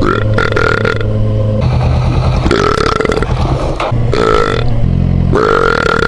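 A man belching loudly several times in a row, four or five deep belches each up to about a second long, over the steady low running of a motorcycle engine.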